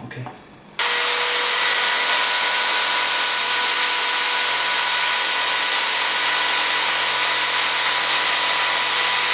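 A few light knocks as the phone is set on the scale. Just under a second in, an electric drill starts and runs at steady full speed, its bit grinding into the Ulefone Metal smartphone's glass screen and metal body, with a steady motor whine over the grinding noise.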